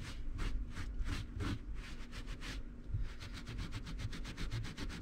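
Carpet pile being scrubbed by hand with a small pad in quick, rhythmic back-and-forth strokes, about four or five a second, agitating an acidic rust and hard-water remover into the stain.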